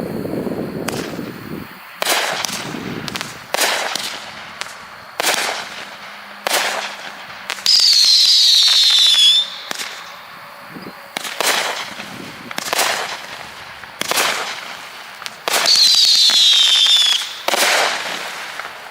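Consumer fireworks cake firing a string of shots, one every second or so. Twice a shot lets out a loud whistle that falls in pitch and lasts under two seconds; these are the loudest sounds.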